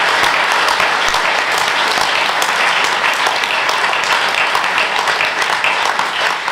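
Audience applauding steadily, a dense clapping.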